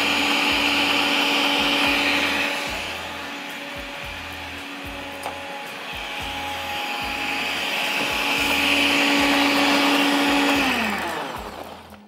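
Countertop electric blender grinding a wet chutney to a smooth paste. The motor runs steadily, goes quieter for a few seconds in the middle and louder again, then winds down with falling pitch near the end as it is switched off.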